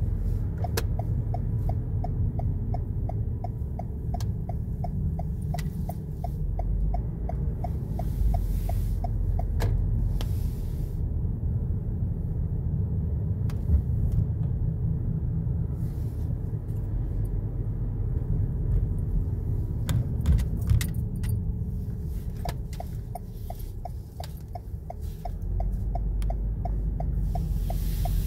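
Car cabin road noise from driving slowly: a steady low rumble. A light, evenly spaced ticking, about three or four a second, runs through the first ten seconds and again near the end, with a few sharp clicks in between.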